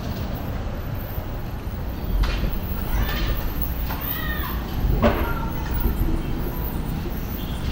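City street traffic rumble, with a few short pitched calls that rise and fall about three to four and a half seconds in, and a sudden sharp noise about five seconds in.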